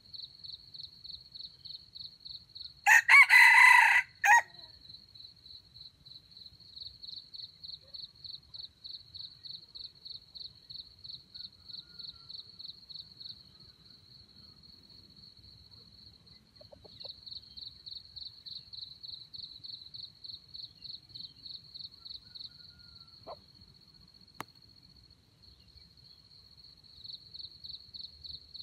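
A red junglefowl rooster crows once, about three seconds in, for roughly a second and a half. It crows over steady, rapid, pulsed chirping of crickets.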